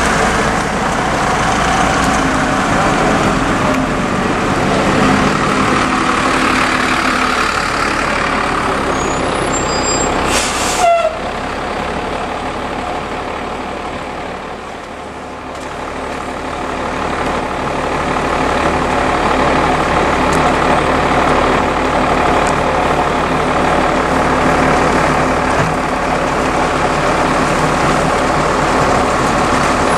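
Double-decker buses' diesel engines running as the buses pull away and drive past, with a brief sharp click about eleven seconds in. The engine sound dips a few seconds later, then builds again as the next bus comes close.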